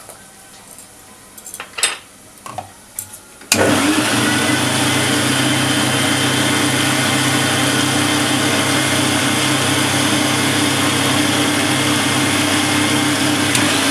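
A few light clicks and knocks, then an electric mixer grinder switches on about three and a half seconds in and runs steadily and loudly, grinding onion with desiccated coconut into a paste. It cuts off suddenly at the very end.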